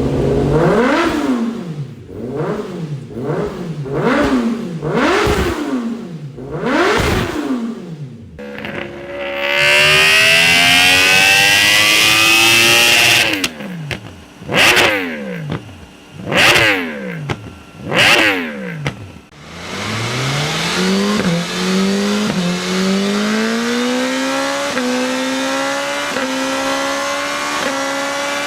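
Motorcycle engine breathing through an SC Project SC1-R carbon muffler. It blips the throttle about seven times in quick succession, holds high revs for a few seconds, then gives three more sharp blips. Near the end it pulls away, climbing in pitch through several gear changes, with a short dip at each shift.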